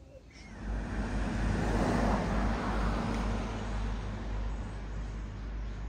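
A motor vehicle going past. Its engine and road noise swell to a peak about two seconds in, then ease off to a steadier hum.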